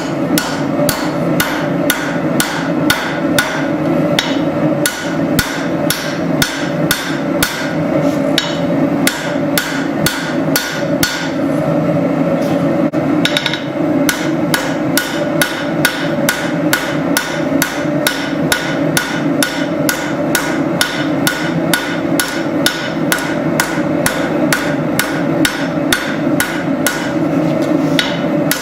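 Hand hammer blows on hot spring steel on an anvil, forging a tanto blade, struck in a steady rhythm of about two to three a second with a few short pauses, over a steady hum.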